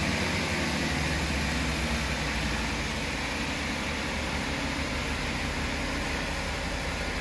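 Class 165 diesel multiple unit running with a steady engine drone under a constant hiss.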